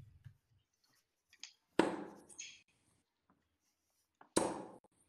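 Steel-tip darts thudding into a bristle dartboard: two throws, each a sharp hit with a short fading tail, about two and a half seconds apart. Faint low knocks at the start come from darts being pulled out of a board.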